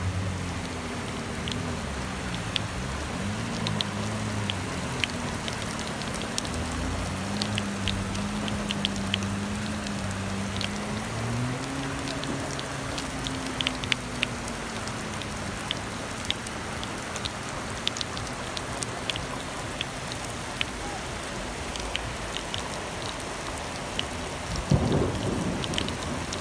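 Rain pouring down, a steady hiss dotted with sharp clicks of drops striking, heard from inside a car. A low hum wavers in pitch underneath, and a short louder low rumble comes near the end.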